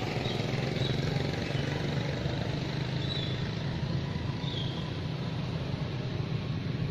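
Steady outdoor background noise: a low rumble and hiss, with a few faint, short high chirps.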